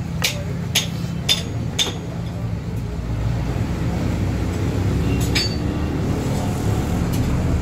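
A small hatchet striking a wooden hammer handle as it is shaped: four sharp knocks about half a second apart, then one more a few seconds later. Under them a motor vehicle's engine runs steadily and grows louder about three seconds in.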